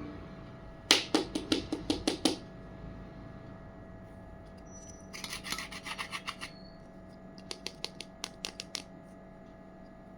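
Small toy pieces being handled and rubbed together in quick, sharp scraping strokes, in three short runs: the loudest about a second in, a softer, denser one in the middle, and a run of crisp clicks near the end.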